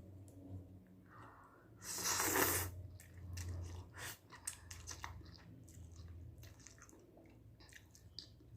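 A person eating instant Korean ramen noodles. A short, loud rush of breath at the noodles comes about two seconds in, followed by chewing with many small wet clicks.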